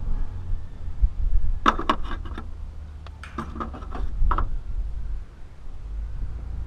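Two short runs of light clicks and taps from hands working a tube of silicone and the small carburetor fitting, over a steady low rumble.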